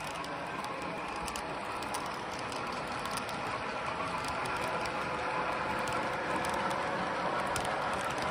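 Model train passenger cars rolling along the track close by: a steady running noise from the wheels on the rails, with scattered light clicks, growing slightly louder.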